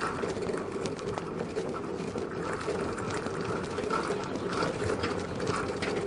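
A bike-share bicycle riding over asphalt: a steady rolling noise with many small rattles and clicks, as from the bike and its wire front basket shaking over the road surface.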